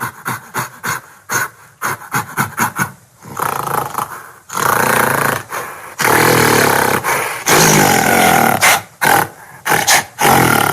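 Gorilla vocalising: a quick run of short, sharp sounds, then several long, loud roars, then more short sounds near the end.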